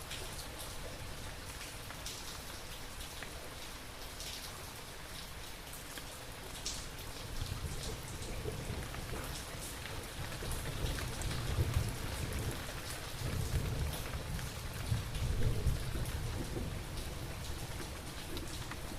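Steady rain falling, with scattered drop hits, and thunder rumbling low. The rumble builds about a third of the way in and rolls on, loudest in the second half.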